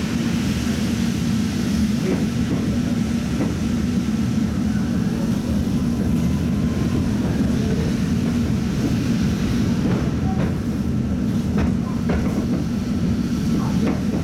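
Tatra T3 tram running along the line, heard from inside the car: a steady low rumble of wheels on rail and running gear, with a few light knocks scattered through it.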